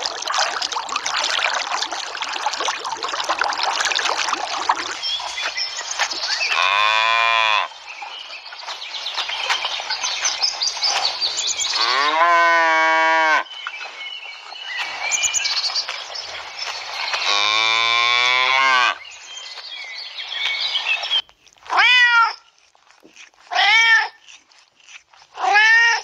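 A steady rushing noise with cows mooing three times through it, each moo long and low. Then a domestic cat meows three times near the end, each meow short and rising then falling.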